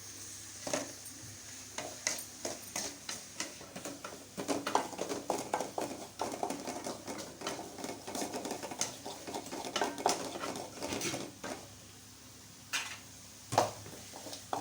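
A metal spoon stirring and scraping chopped vegetables frying in oil in a pan, a steady run of clicks and scrapes against the pan. Near the end there is a short quieter spell, then one sharp knock.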